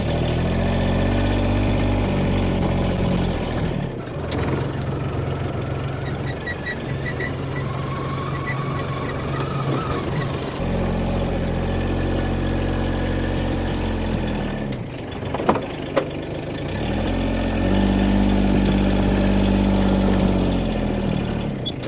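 Small machine engine running under load, speeding up and slowing down several times, with a couple of sharp knocks about two-thirds of the way through.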